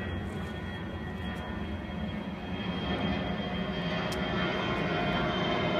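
Airplane engine noise overhead: a steady rumble with a faint high whine, growing steadily louder as the aircraft approaches.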